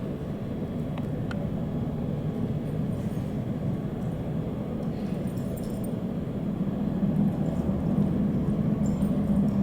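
Jet aircraft engines giving a steady low rumble that grows somewhat louder about seven seconds in.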